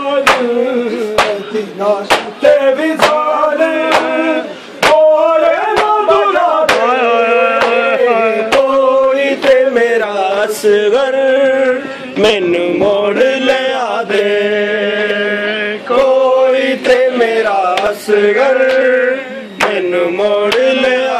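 A group of men chanting a noha, a Muharram lament, in chorus. Sharp slaps of hands striking chests (matam) keep a steady beat under the singing.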